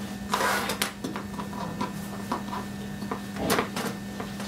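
Hands kneading modelling paste, then a non-stick rolling pin set down and rolled over a plastic cutting mat, with two short scraping rustles, about half a second in and again about three and a half seconds in, and a few light clicks between them over a steady low hum.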